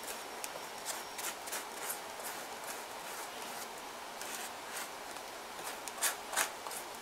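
A paintbrush stroking gesso onto a newspaper paper-mache figure: a series of short brushing strokes over a steady faint hiss, with two louder strokes about six seconds in.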